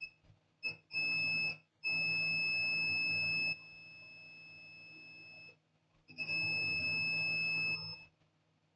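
Multimeter continuity buzzer beeping in a steady high tone: a few short chirps, then a long beep of about a second and a half, and another long beep near the end. The continuous beep means the probed circuit still reads as shorted.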